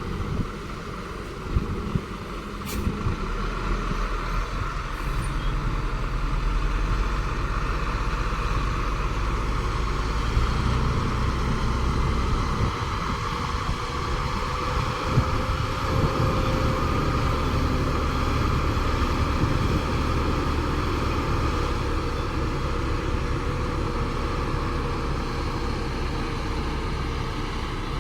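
Diesel engine of a Cat excavator running steadily while it works, growing louder a few seconds in, with a few sharp clanks near the start.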